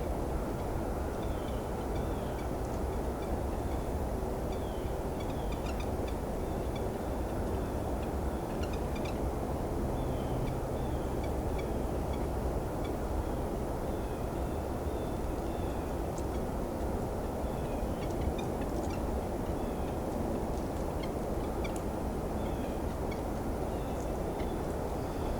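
Red-breasted nuthatches giving soft, squeaky contact calls: many short notes scattered through, over a steady low rumble.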